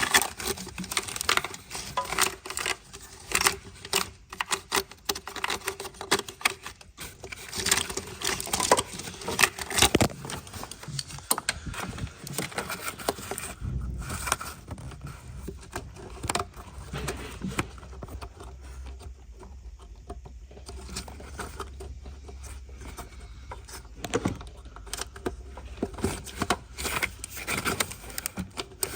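Hand work in an engine bay: a steady run of irregular clicks, taps and clatter with some scraping, as plastic electrical connectors and clips are worked loose and hand tools are handled.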